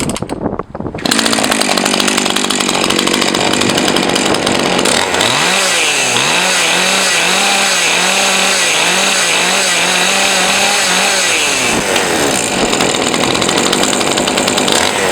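Husqvarna 543 XPG two-stroke chainsaw revved up to high throttle about a second in and held there, its pitch wavering up and down rhythmically for several seconds in the middle before steadying again. It is run to check the chain oil pump's output, on a carburetor the owner thinks is set to give too few revs on high.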